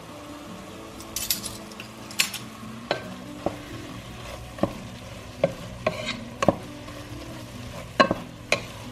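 Sliced onions being stirred with a wooden spoon in a nonstick pot, the spoon knocking against the pot in a dozen or so irregular clicks, over a soft, steady sizzle of the onions frying in oil and butter as they start to caramelize.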